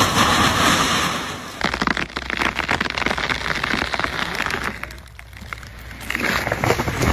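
Branches and leaves crackling and snapping in dense irregular strokes as cut tree limbs come down, with a quieter lull a little past the middle.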